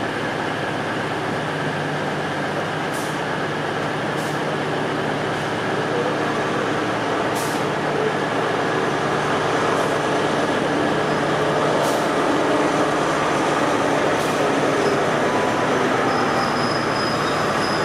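Pair of Class 800 trains running away over pointwork, a continuous rumble of wheels and running gear that grows slightly louder over the seconds. Occasional sharp clicks stand out, and a faint high squeal comes in near the end.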